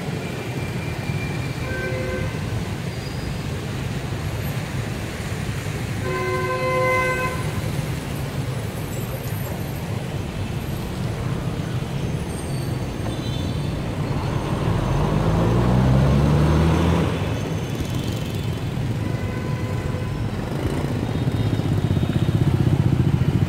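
Busy street traffic on a wet road: motorbike and car engines running steadily, with horns honking near the start and again, louder, about seven seconds in. About fifteen seconds in, a nearby engine rises in pitch as it speeds up, and near the end a close motorbike engine grows louder.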